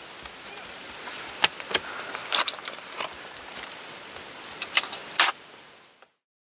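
Scattered sharp clicks and metallic clinks over a faint outdoor hiss, the two loudest about two and a half and five seconds in. The sound fades out about six seconds in.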